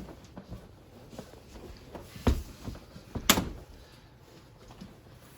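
Two sharp knocks about a second apart, with a few fainter ticks and taps between them.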